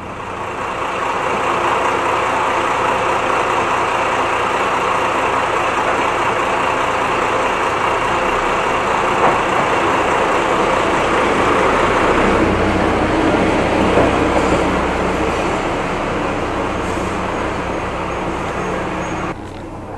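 Kyoto Tango Railway 'Akamatsu' diesel railcar pulling into a station platform: steady engine and wheel noise, with a deeper rumble about twelve to fifteen seconds in as it passes close, cutting off suddenly near the end.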